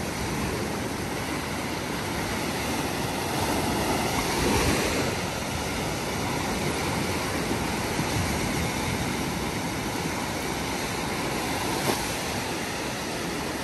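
Sea surf washing steadily onto a beach, swelling briefly about a third of the way in.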